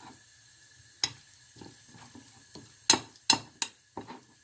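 A spoon stirring thick grated-yuca fritter batter in a glass bowl: soft scraping with a sharp clink of the spoon against the glass about a second in, then four more clinks in quick succession near the end.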